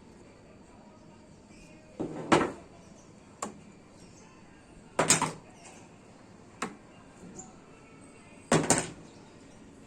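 Sharp knocks and clacks on a hard surface: five in all, some in quick doubles, spaced a second or two apart.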